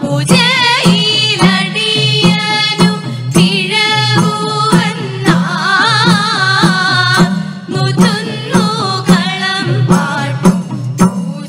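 A group of women singing pulluvan pattu, the Kerala serpent-worship folk song, in a wavering, ornamented melody over a steady beat of struck percussion.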